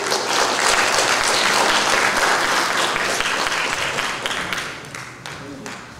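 Audience applauding, loud at first, then dying away over the last couple of seconds.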